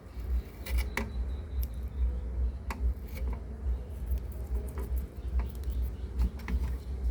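Irregular light clicks and taps, as of small parts being handled, over a low steady rumble.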